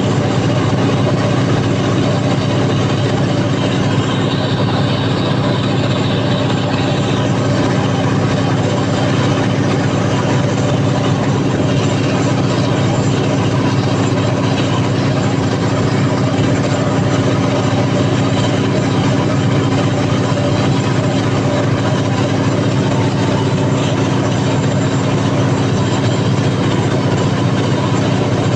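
Freshly overhauled Cummins KTA50 sixteen-cylinder turbocharged diesel on a 750 kW generator set, running steadily during load testing: a loud, even drone with strong low tones.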